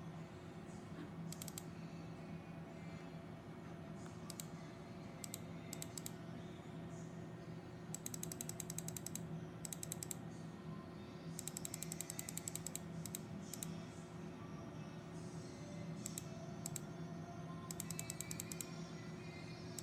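Short runs of rapid clicking from working a computer's mouse and keys while playing back security-camera footage, repeated many times, over a steady low hum.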